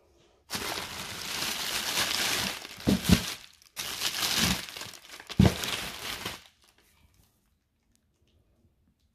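Red paper wrapping of a brick of firecrackers crinkling and rustling as it is handled, in two long stretches with a short break between. Each stretch has a couple of dull thumps from the pack being knocked.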